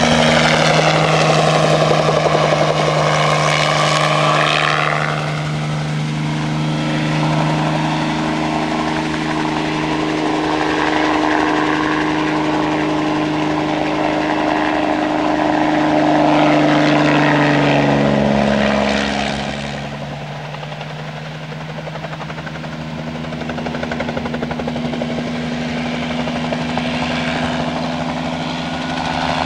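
Bell 47 piston-engined helicopter flying low crop-spraying passes, engine and rotor running steadily. It passes close in the first few seconds with a falling pitch, passes again about eighteen seconds in with another drop in pitch, fades a little, then grows louder again near the end.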